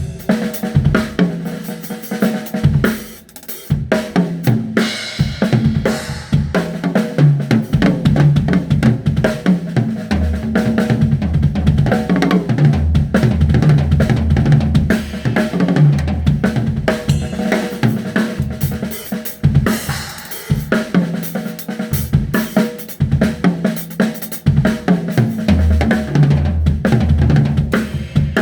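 Drum kit played in a continuous groove: snare and bass drum beats under hi-hat, with cymbal crashes about five seconds in and again about twenty seconds in.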